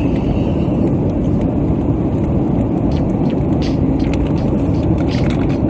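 Steady, loud airliner cabin noise in flight: an even rumble of engine and airflow noise, with a few faint clicks.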